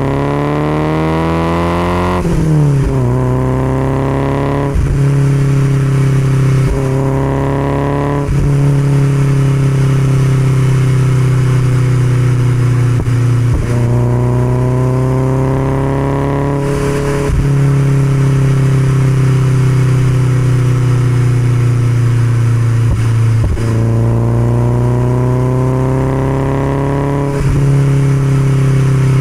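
1969 Alfa Romeo Spider 1750's twin-cam four-cylinder engine breathing through an Alfaholics exhaust, pulling hard with quick upshifts in the first eight seconds. It then cruises at steady revs, with two more rises in revs, each ending in an upshift, around the middle and near the end.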